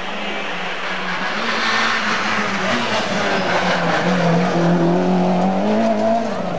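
Rally car driving hard through a bend, its engine note climbing then dropping sharply near the end as the driver lifts or shifts, over a loud hiss of tyres on the road surface.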